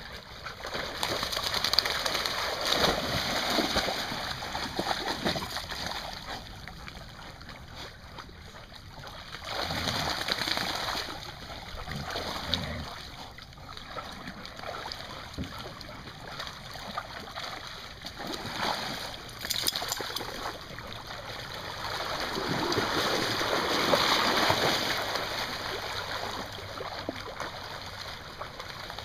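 Water splashing and sloshing as dogs wade and swim through the shallows after a kayak, coming and going in several louder spells.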